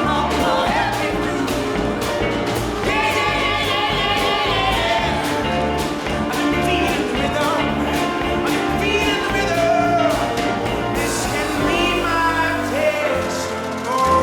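A pop song with a sung melody over a steady bass and beat, with many short sharp clicks running through it.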